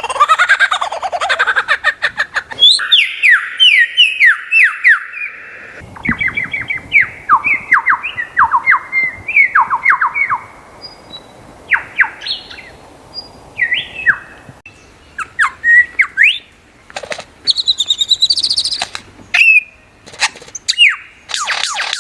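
Lyrebird singing: runs of rapid, sharply falling whistled notes in bursts, with a few clicks and higher chirps near the end.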